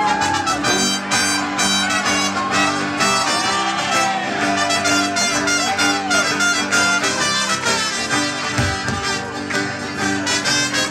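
Live folk band playing an instrumental break, with horns taking the lead in sustained, bending notes over the band's steady accompaniment.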